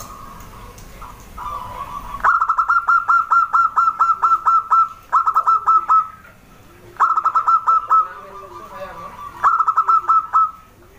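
Zebra dove (perkutut) singing: runs of rapid staccato coos, about five a second, in four bursts starting about two seconds in, with fainter, lower coos underneath.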